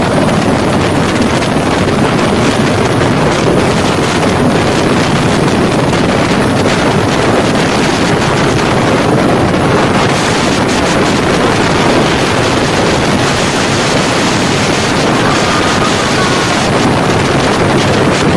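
Loud, steady rushing noise: wind buffeting the microphone over a constant engine-like drone.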